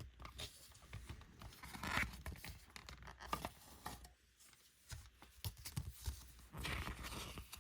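Close handling of a CD jewel case and its paper booklet: light plastic clicks and soft paper rustling and scraping, with a rustle about two seconds in and another near the end.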